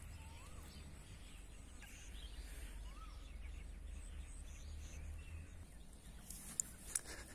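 Quiet outdoor ambience: a steady low rumble, likely wind on the microphone, with a few faint bird chirps and a couple of soft clicks near the end.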